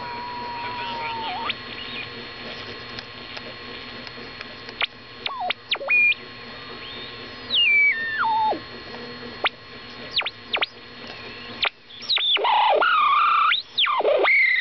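Vintage portable AM radio being tuned across the band: a steady hiss of static with whistles that swoop down in pitch as the dial sweeps past stations, which are the beat notes of passing station carriers. The squeals grow loud and warbling near the end.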